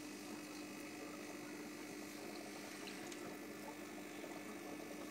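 Aquarium filter equipment running: a steady low hum with a faint watery hiss.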